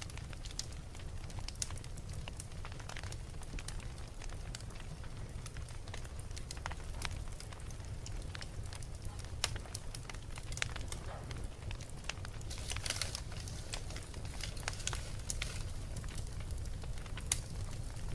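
Wood fire burning in a fireplace: irregular sharp crackles and pops over a steady low rumble, with a brief flurry of crackles about two-thirds of the way through.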